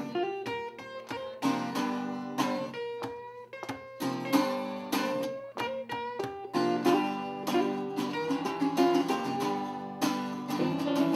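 Two acoustic guitars playing an instrumental passage: strummed chords under a picked single-note lead line with some held notes.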